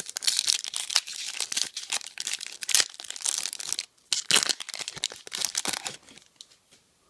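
Plastic wrapper of a trading card pack being torn and crinkled open by hand, in a run of irregular crackling rustles that stop short about six seconds in.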